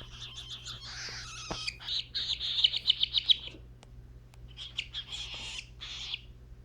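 Cockatiel chick giving rapid, rasping begging calls as it is hand-fed, in two runs with a short pause about three and a half seconds in.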